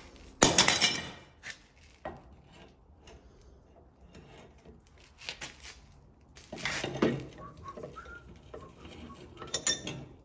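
Metal parts and tools clanking and clinking as they are handled and set down, in a handful of separate knocks, the loudest just under a second in.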